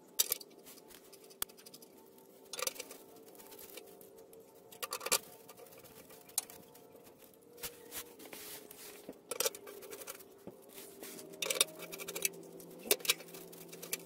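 Small metal clicks and scrapes as transmission pan bolts are handled and threaded in by hand into an Allison transmission pan: a few sharp clicks spaced several seconds apart.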